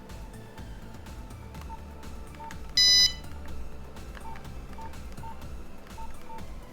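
Nokia 3410 keypad tones: a string of short, faint beeps as the buttons are pressed to work through the menus. One much louder, higher beep sounds briefly about three seconds in.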